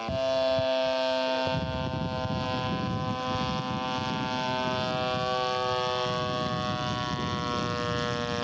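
Radio-controlled model airplane engine running at a steady high pitch, with a rushing noise joining in after about a second and a half.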